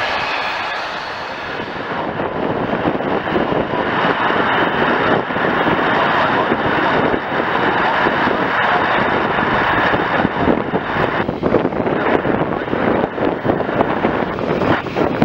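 Jet airliner engines, a loud, steady rushing. Over the last few seconds it turns choppier, with wind buffeting the microphone.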